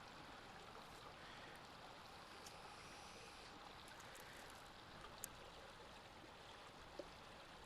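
Near silence: a faint steady hiss of the surroundings, with a small tick about five seconds in and another near the end.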